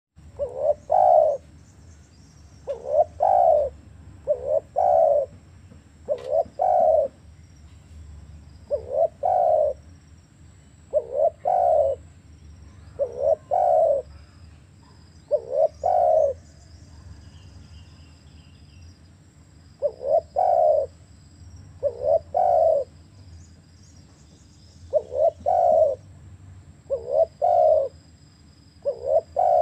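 Spotted dove cooing: repeated phrases of two or three low coos, about one phrase every two seconds, with a short pause past the middle.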